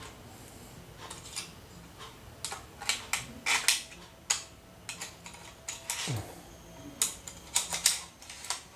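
Irregular sharp metallic clicks and clatter from a Kenko 12N/13 heavy-duty stapler being refilled: a strip of staples slid into the magazine, the spring pusher fitted, and the magazine slide pushed shut.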